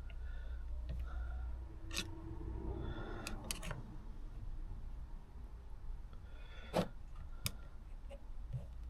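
Light handling of small metal carburettor parts: scattered sharp clicks and some rustling as the slide, needle and spring are fitted back together. The loudest click comes a little before the end. A low steady hum runs underneath.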